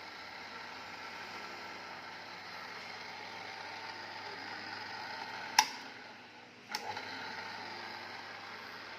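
Burr-free round-tube cutting machine running with a steady hum and a faint whine. Two sharp clicks come about a second apart past the middle; the first is the loudest, and the hum drops briefly between them.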